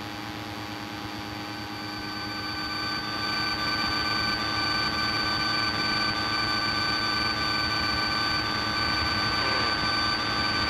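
Steady cabin drone of a Piper Cherokee's piston engine and propeller in cruise flight. It grows louder over the first few seconds, then holds steady, with several constant tones over the noise.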